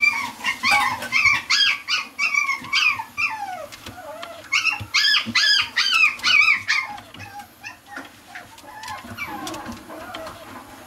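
A puppy whining and yipping: many short, high-pitched cries that rise and fall, in two quick runs, growing fainter near the end.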